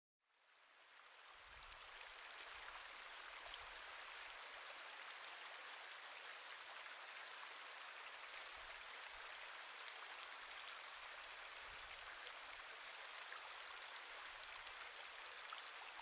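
Steady hiss of splashing water, fading in from silence over about the first two seconds.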